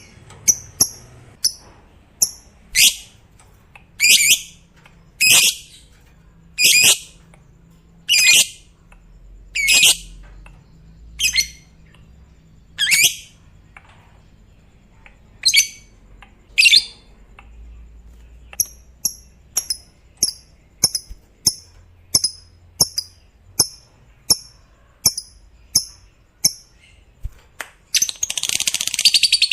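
Lovebird giving a series of sharp, shrill calls about every second and a half, then quicker short chirps, and near the end breaking into continuous rapid chattering, the long 'ngekek' song.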